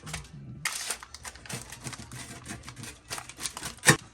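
Food and tableware being handled at a meal: a run of small clicks and rustles, with one sharp knock near the end.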